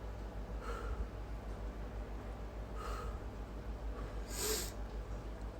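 Three short nasal breaths, the last the loudest, over a steady low hum.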